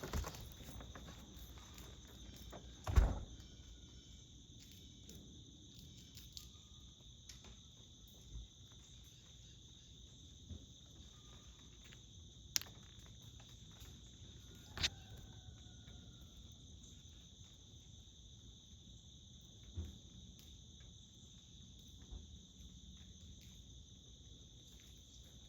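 Steady chorus of insects trilling in a high, unbroken drone, with a single loud knock about three seconds in and a few faint clicks later.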